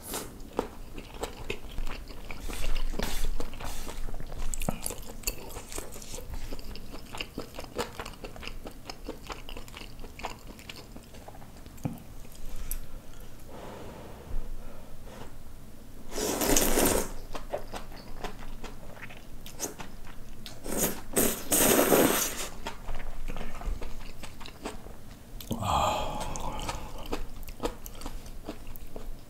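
Close-miked chewing of spicy braised kimchi, pork belly and rice: wet mouth smacks and soft crunches in a steady run. About halfway through come two loud rushes of sucked-in air, a few seconds apart.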